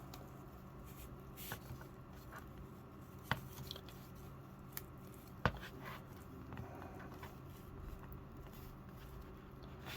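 A few faint, sharp clicks and taps of a plastic action figure being handled and stood up, the loudest about five and a half seconds in, over a low steady room hum.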